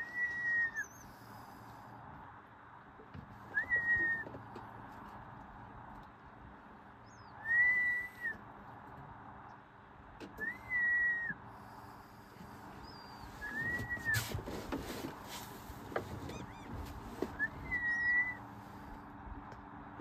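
A bird whistling a single clear note that rises and falls, repeated six times at intervals of about three to four seconds.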